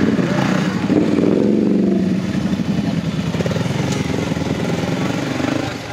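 Sport quad bike (ATV) engine running under throttle as it is ridden through mud, its pitch shifting as the rider works the throttle.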